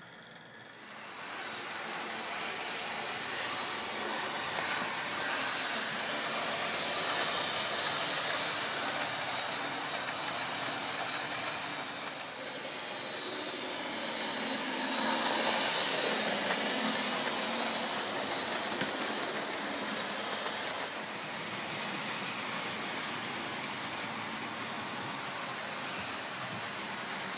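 DCC-fitted Lima OO gauge model diesel locomotive running on the track with its coaches: a steady whirr of motor and wheels on rail. It swells twice as the train runs close by.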